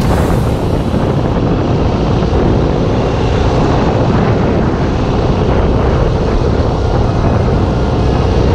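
Yamaha XT600's single-cylinder four-stroke engine running at a steady pace while riding, mixed with wind noise on the onboard camera microphone.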